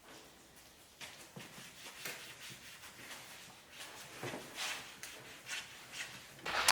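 Faint handling noises: scattered light clicks, taps and rubbing, a little busier in the second half.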